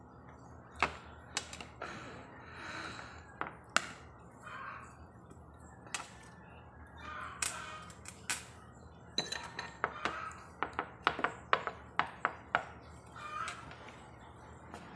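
A metal spoon clinking and scraping against a plate while cake is eaten: scattered sharp clinks, then a quick run of them in the second half.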